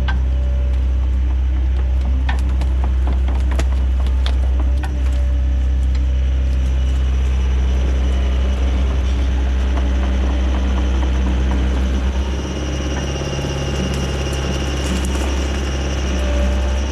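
Diesel excavator engine running steadily under hydraulic load, with scattered sharp snaps. About twelve seconds in, the engine note drops and a steady high whine comes in.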